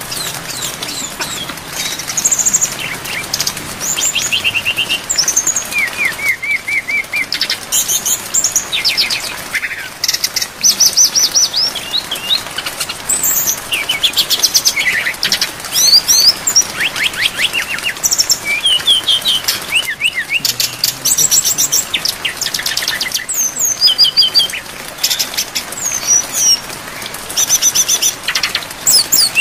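Brown-chested jungle flycatcher (sikatan rimba dada coklat) singing a fast, varied song of rapid trills, chips and quick slurred whistles, over a steady hiss of rain.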